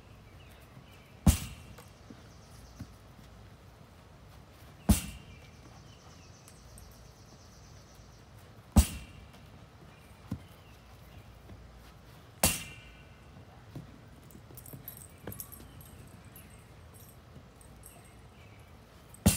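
Lacrosse ball striking a framed rebounder net, five sharp smacks spaced roughly four seconds apart, each with a brief ringing after it. A few faint light knocks fall between the hits.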